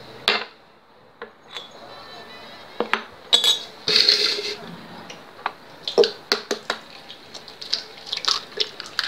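Glasses and a plastic blender jar being handled and set down on a granite countertop: a series of sharp knocks and clinks, with a brief rushing noise about three to four seconds in.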